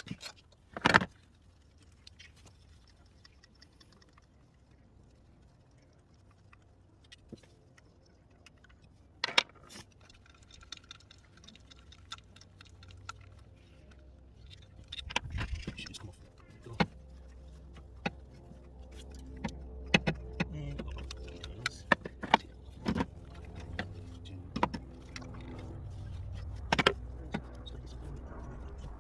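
Metal hand tools clinking and knocking in an engine bay as the 10 mm bolts holding the ignition coil packs are undone and the coils lifted out for a spark plug change. The clinks come singly at first and more often in the second half, over a low steady hum.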